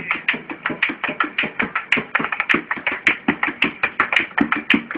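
Hands drumming a quick, steady rhythm on an empty plastic water-cooler jug used as a hand drum, with an acoustic guitar strummed along.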